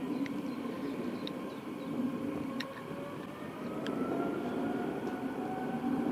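Jet airliner engines running, with a whine that rises slowly in pitch over a low rumble. A few faint short ticks are heard.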